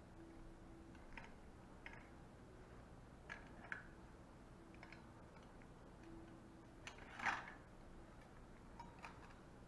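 Steel surgical instruments, hemostatic forceps and a stainless kidney dish, giving scattered faint clicks and clinks, with a louder metallic clatter about seven seconds in.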